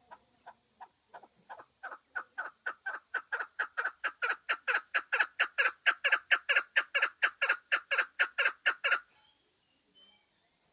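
Chukar partridge calling a long run of repeated 'chuk' notes, its rally call. The notes start faint and slow, speed up and grow louder to about four a second, then stop abruptly about nine seconds in. A few faint, high, thin notes follow near the end.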